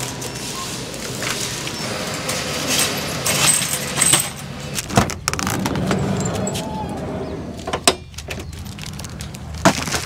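Plastic grocery bags rustling as they are handled, then the clicks and knocks of a camper van's sliding side door being opened and bags being set inside.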